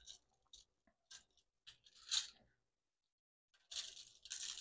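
Dry seasoning rub sprinkled from gloved fingers onto a meatloaf on a sheet pan: soft, gritty rustling in short bursts, with a pause of about a second past the middle before it starts again.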